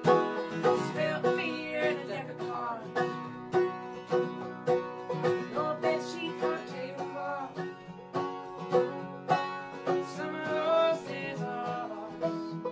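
Live acoustic folk song: a banjo and an acoustic guitar picked together, with a woman singing in phrases over them.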